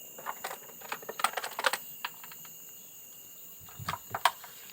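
A run of sharp clicks and crackles in two clusters, the first beginning about a third of a second in and the second near the end, over a steady high-pitched drone.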